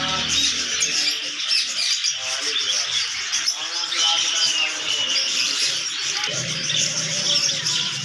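Many caged budgerigars and other small parakeets chirping and chattering at once in a dense, continuous flock chatter, with music playing underneath.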